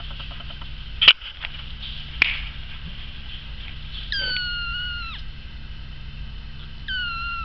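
Black Persian kitten, four weeks old, mewing. One long high-pitched mew about four seconds in holds its pitch and drops at the end, and a shorter mew follows near the end. Earlier come two sharp knocks about a second apart, the first the loudest sound.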